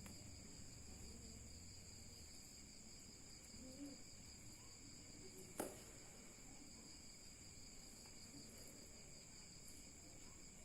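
Near silence with a steady, high-pitched trilling of crickets, and one sharp click a little past halfway.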